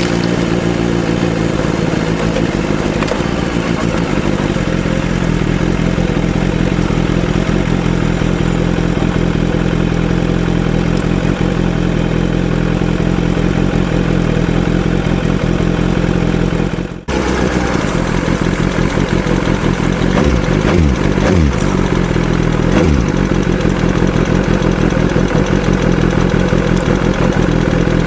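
BMW S1000RR inline-four engine running at idle, steady, with a short sudden break about two-thirds of the way through and small changes in pitch after it.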